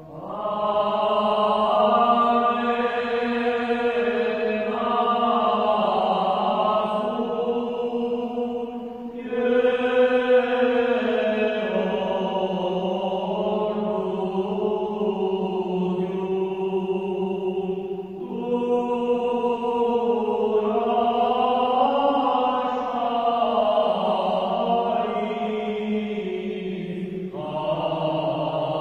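Armenian Church liturgical chant: singing in long, sustained phrases whose pitch bends and wavers, with a short break about every nine seconds.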